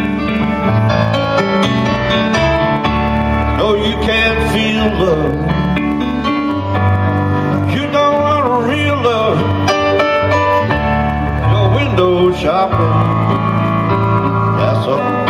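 A live blues band plays an instrumental break: a Nord Stage 2 keyboard in a piano voice plays chords and bass notes under a lead line with bending notes.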